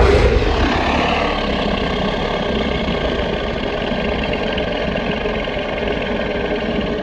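Godzilla film sound effect: a steady, deep rumbling noise that starts suddenly, holds level for about seven seconds and then cuts off.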